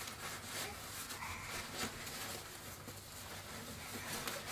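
Disposable nappies and the fabric of a diaper bag rustling as the nappies are pushed into the bag, a soft, scattered rustling with small handling clicks.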